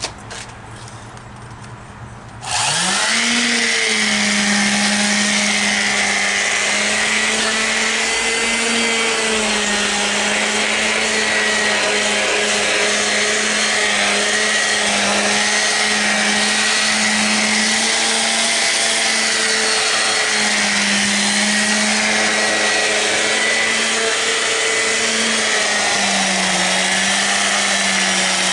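A concrete vibrator switches on about two and a half seconds in and then runs steadily with a loud buzzing hum whose pitch wavers slightly, shaking fresh cement in a wall repair to smooth and settle it.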